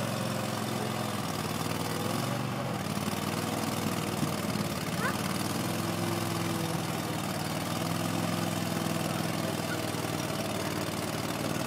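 Schlüter Super Trac 2200 tractor's diesel engine running steadily under load as it drags a mounted multi-furrow plough through deep mud, its note shifting slightly about halfway through.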